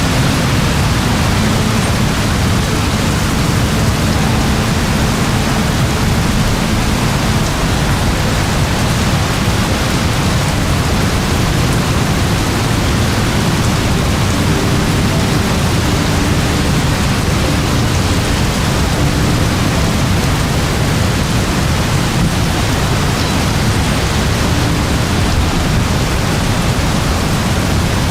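Very heavy rain falling in a steady, even downpour with a deep low rumble underneath.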